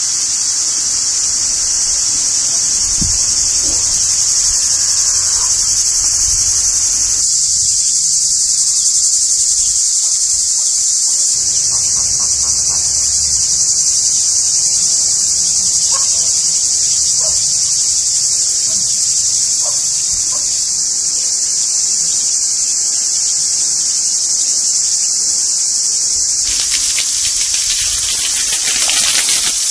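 Steady, high-pitched shrilling of an insect chorus. Near the end, water sprays and hisses onto a concrete slab.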